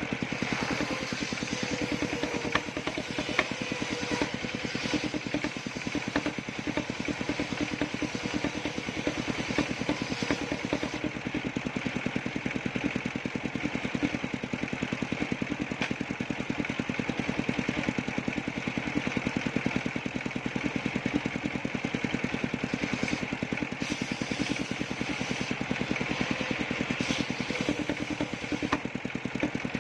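Engine of a circular-saw sawmill running steadily at an even, rapid beat, with a few light knocks.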